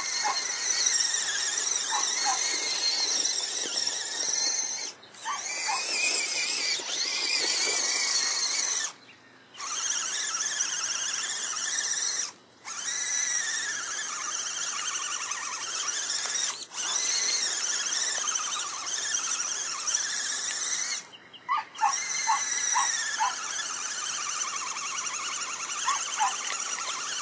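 Electric drive motor and gearbox of an Axial SCX10 Honcho RC crawler whining under load as it churns through deep mud. The pitch wavers with the strain, and the whine stops briefly several times as the throttle is let off and reapplied.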